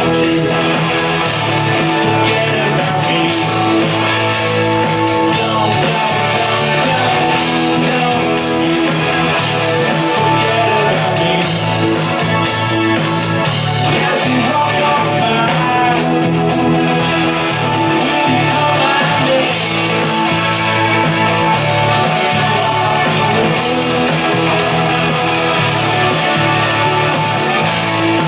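Live rock band playing through a PA: electric guitar, bass and drums, with a lead singer.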